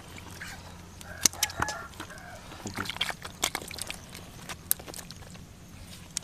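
A chicken clucking a few short times, among scattered sharp clicks.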